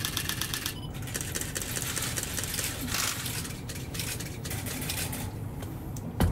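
Camera shutter firing in rapid continuous bursts, about ten clicks a second, over a low steady rumble, with a single thump near the end.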